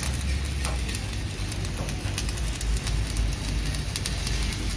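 Stick-welding arc crackling and sizzling steadily as an electrode is run along a seam on a steel truck chassis rail, over a steady low hum.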